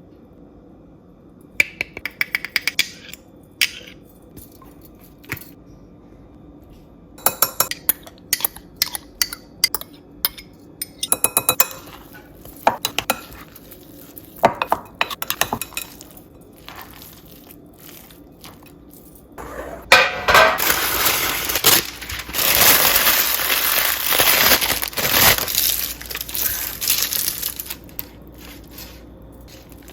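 Kitchen utensils clinking and knocking against bowls and dishes in scattered bursts during food preparation, then a louder stretch of continuous rough, scraping noise lasting about seven seconds near the end.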